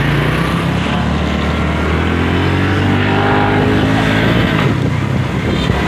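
Small motorcycle engine running under way, its pitch climbing between about two and four seconds in as the bike speeds up, over a steady rushing noise.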